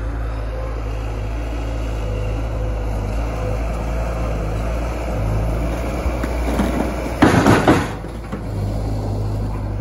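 Bobcat S160 skid-steer loader's diesel engine running steadily as it carries chunks of firewood in its grapple. About seven seconds in, the big rounds are dumped onto a trailer deck with a loud clatter lasting under a second.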